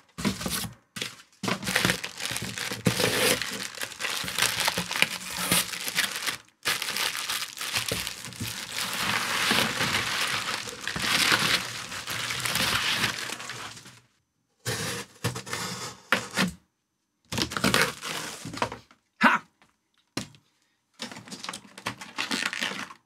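Plastic and packing material crinkling and rustling with sharp crackles as it is pulled out of a cardboard box. It goes on steadily for about the first fourteen seconds, then comes in short bursts with pauses between them.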